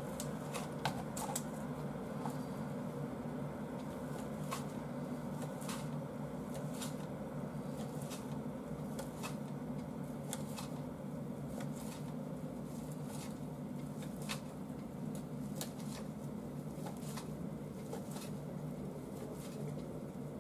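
Kitchen knife slicing fried tofu (aburaage) into thin strips on a cutting board: light, irregular taps of the blade meeting the board, about one or two a second, over a steady low hum.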